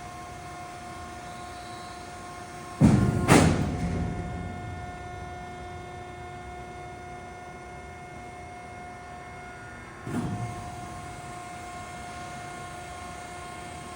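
2002 MG/Heller 410 D EH four-roll CNC plate roll running with a steady machine hum, broken by heavy clunks: two close together about three seconds in, another about ten seconds in and one at the very end.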